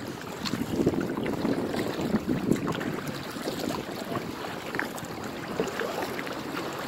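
Kayak paddles dipping and splashing in choppy water, with small waves lapping at the hulls and some wind on the microphone.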